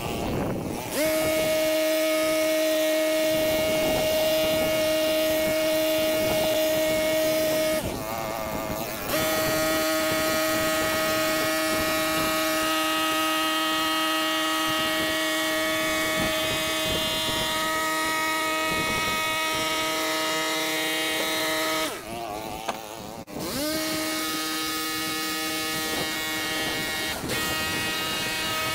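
Stihl KombiMotor petrol engine driving a long-reach hedge trimmer attachment, running at steady high revs as it trims a boxwood hedge. It eases off three times: just after the start, about eight seconds in and about twenty-two seconds in, each time coming back up to the same steady speed.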